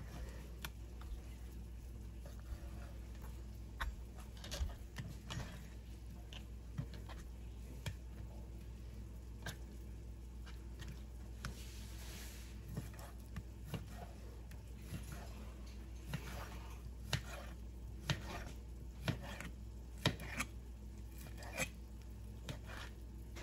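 Kitchen knife slicing through ham and tapping on a plastic cutting board, in irregular strokes that come closer together in the second half.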